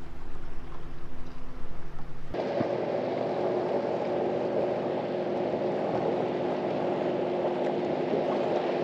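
Sea water lapping and swishing around a kayak's hull, with a few small splashes. About two seconds in it changes to a steady, even rushing hiss of water moving past the boat.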